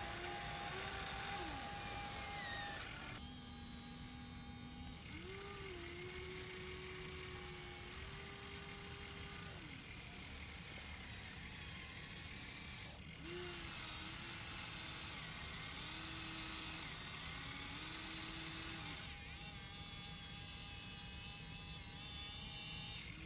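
Huina RC excavator's small electric motors whining as the boom, arm and bucket move. The pitch steps and glides up and down with each movement, and the sound changes abruptly a few times.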